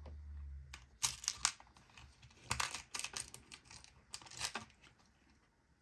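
Small screws and parts being sorted by hand: quick clicks and rustling in three short bursts.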